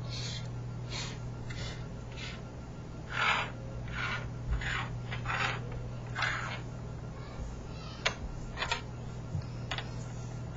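Plastic Rubik's cube pieces being slid and set down on a surface while they are sorted: a series of short scraping and rubbing sounds, with a couple of sharp clicks about eight seconds in.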